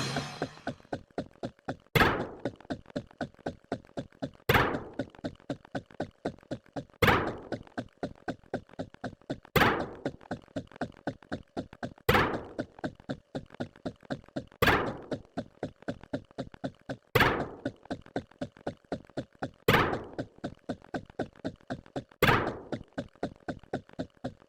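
A sound-effect thunk strikes about every two and a half seconds, nine times, each hit ringing briefly. Between the hits runs a fast, even ticking of about four clicks a second.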